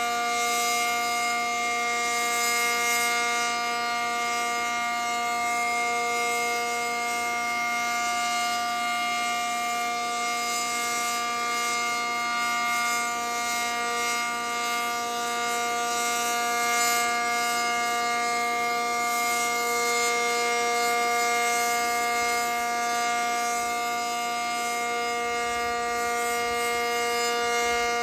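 ACA Cyclone 125 outdoor tornado warning siren sounding its steady Alert signal: a constant held tone that neither rises nor falls.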